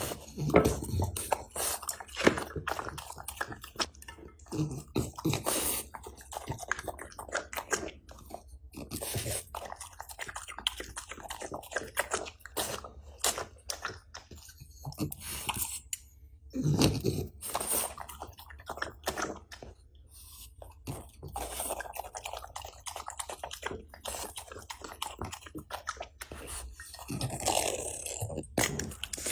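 A dog eating: irregular crunching and chewing, with wet mouth clicks throughout and a few louder gulping bites.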